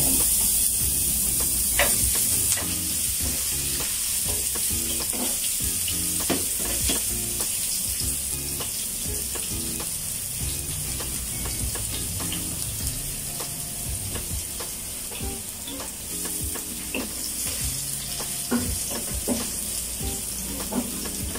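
Minced garlic sizzling in hot oil in a frying pan, loudest just after it goes in and slowly easing as it fries toward brown. Occasional scrapes and taps of a wooden spatula stirring it.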